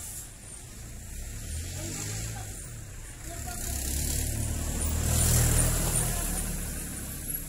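A motor vehicle going by, its engine and road noise growing louder to a peak about five and a half seconds in, then easing off.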